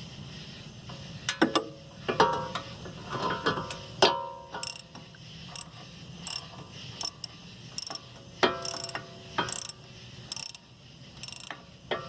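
Ratchet wrench tightening the bolts of a new front wheel bearing hub on a 2007 VW Jetta, drawing the bearing into the knuckle: short bursts of ratchet clicks about once or twice a second, after a few sharp metal clanks in the first seconds.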